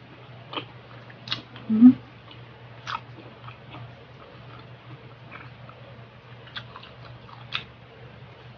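Close mouth sounds of a person chewing grilled pork ear, with sharp, crisp clicks scattered through the chewing and one brief, louder low sound a little under two seconds in.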